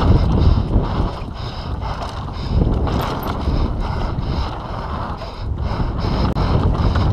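Wind noise on a handlebar-mounted action camera's microphone during a fast mountain bike descent, mixed with tyres on a dirt trail and the bike's frequent rattles and knocks over the bumps.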